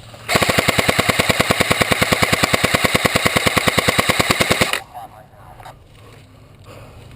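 Automatic airsoft gun firing one long full-auto burst at about ten shots a second, starting just after the start and stopping abruptly about four and a half seconds later.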